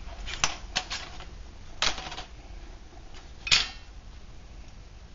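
Light clicks and clatter of a hardware-cloth wire pot stand and a small metal Esbit burner being lifted and set down on a workbench: about five short, sharp knocks, the loudest about two seconds in and again about three and a half seconds in.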